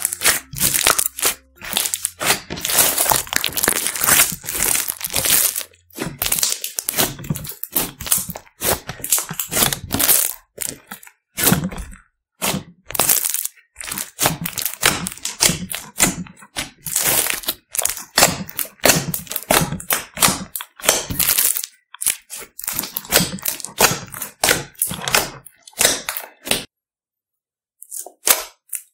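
Clear slime mixed with glitter and beads, squished and folded by hand: dense, irregular crackling and popping clicks, with a pause of about a second near the end.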